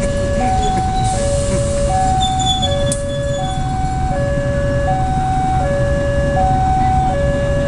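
Railway level-crossing warning signal sounding a two-tone electronic chime, a higher and a lower note taking turns about every three-quarters of a second, over the low rumble of a slow passenger train crossing, a diesel locomotive followed by its carriages.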